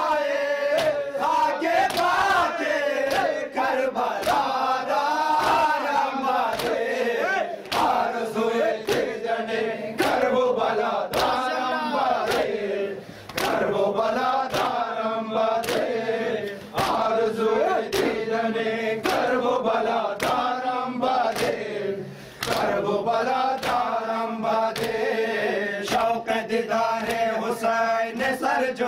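A crowd of men chanting a noha, an Ashura mourning lament, in unison with a lead reciter on a microphone. The chant is punctuated by a steady rhythm of sharp slaps from the congregation beating their chests (matam), with brief pauses between lines.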